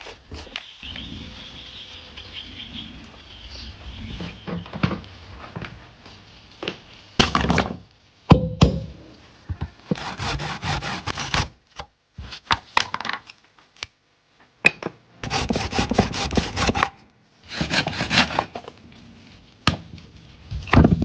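Wood being worked by hand: scattered wooden knocks and thunks, with several bursts of quick repeated strokes lasting a second or two each.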